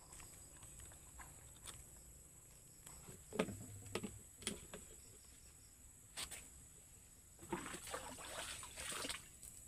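Water sloshing and splashing for a second or two near the end as a plastic container is dipped into a small pond to scoop water, after a few light knocks about halfway through.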